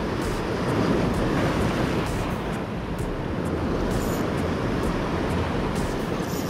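Sea waves washing against the shore, swelling a little about a second in, with wind buffeting the microphone.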